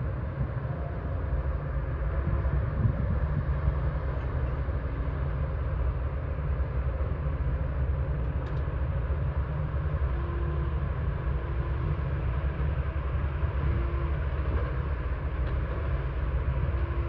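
Heavy diesel machinery running with a steady, low rumble.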